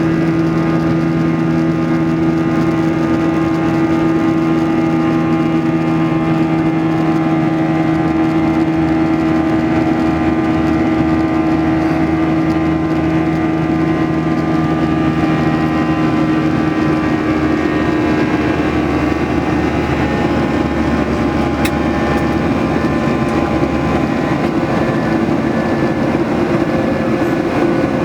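Boeing 737-800's CFM56-7B jet engines running: a steady drone with several humming tones, some of which shift in pitch about two-thirds of the way through as the thrust changes.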